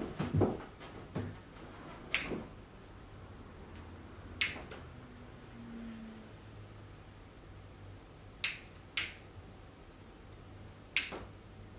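A lighter clicking five times, several seconds apart, as it is struck to light small fireworks. Soft handling knocks come in the first second or so.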